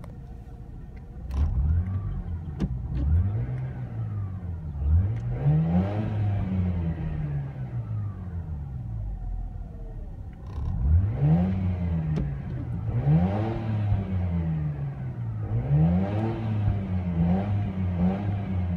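2004 Mazda RX-8's 1.3-litre twin-rotor rotary engine being free-revved at a standstill, heard from inside the cabin. It idles briefly, then rises and falls in a string of quick blips, some reaching about 6,000 rpm, before dropping back toward idle.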